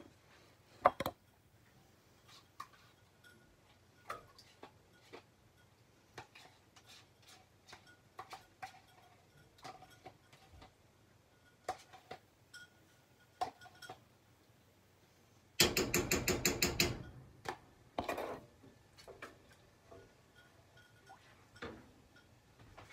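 Spoon knocking and scraping against dishes as sour cream is emptied into the pot and stirred in: scattered light clicks and knocks, with a quick rattle of taps for about a second and a half just past the middle.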